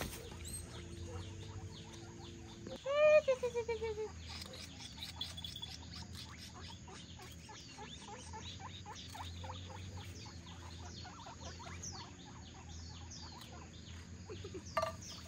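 Guinea pigs squealing: one loud, pulsed call falling in pitch about three seconds in, then many soft short squeaks and chirps.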